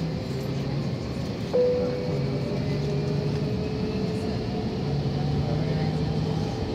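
Steady hum and rumble of a jet airliner's engines heard inside the cabin as it taxis. A clear tone starts sharply about a second and a half in and slowly fades.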